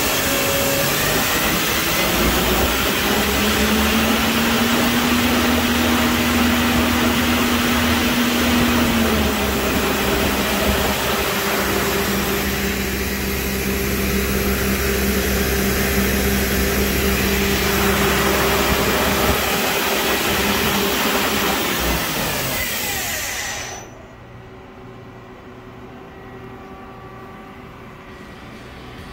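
Femco Durga 25E CNC turning-center spindle and chuck spinning at high speed, near 4,000 rpm: a loud, steady whir with a hum that changes pitch about nine seconds in. Near the end the spindle winds down and the noise drops sharply, leaving a quieter machine hum.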